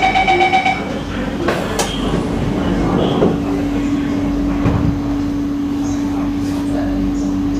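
Singapore MRT train's door-closing warning tone, a fast even beeping that stops about a second in. Then the train's rumble, with a steady low hum setting in about three seconds in as the train moves off.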